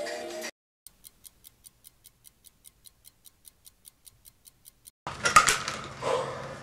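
Steady clock-like ticking, about five high, sharp ticks a second, over otherwise dead silence. About five seconds in it is cut off by loud rustling and knocks.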